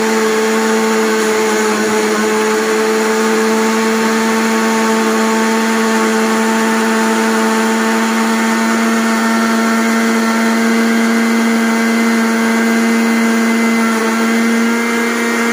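Nova electric jug blender motor running at a steady pitch, blending soft boiled pointed gourd into a paste. The motor cuts off suddenly at the end.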